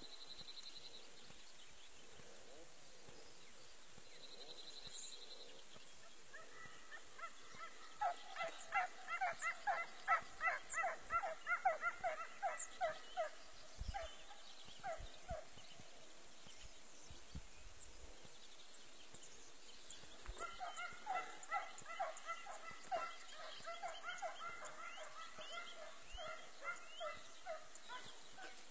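Hunting hounds baying on a hare's trail: rapid repeated yelping cries, about two to three a second, in two long bouts, one from about seven seconds in to about sixteen and another from about twenty seconds on.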